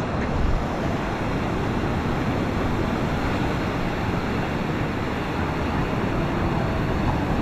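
Steady rushing noise of ocean surf on a beach, with wind buffeting the microphone.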